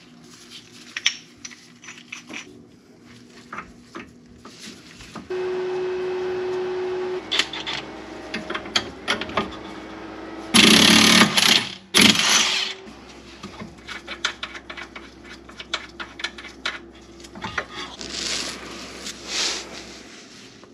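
Cordless impact wrench driving the forcing screw of a tie rod end puller to separate the tie rod end from the steering knuckle. It spins with a steady whine for about two seconds, then hammers in two loud bursts a little past halfway, among clinks of tools being handled.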